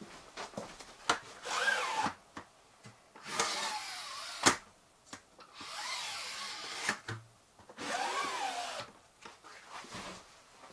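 Freshly restrung pleated day/night window shade being slid up and down by hand on its cords: four sliding strokes of about a second each, each with a whine that rises and falls in pitch, and a few sharp clacks as the rails are stopped.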